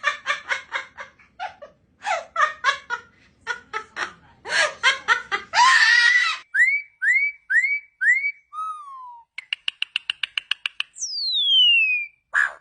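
A series of bird calls. First come fast runs of short chattering notes, then four quick rising whistles, a lower falling whistle, a rapid rattle of clicks, and one long whistle sliding steeply down in pitch near the end.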